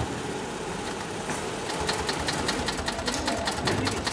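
A heavy-duty long-arm sailmaker's sewing machine (9366HM) starts stitching about a second in, its needle going through sailcloth with an even clicking rhythm of about six stitches a second.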